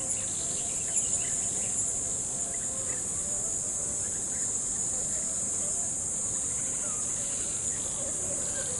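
A dense chorus of crickets trilling steadily and without pause in a high, bright band, over a faint rush of gently flowing river water.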